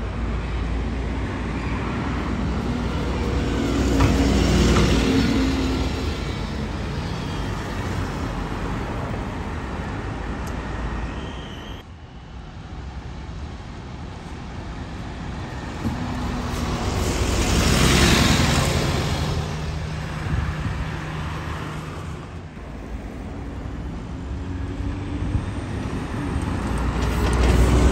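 Diesel double-decker buses moving through town traffic, the engine hum and tyre noise swelling as each bus draws close and passes. It grows loudest three times: about four seconds in, about halfway through, and at the very end.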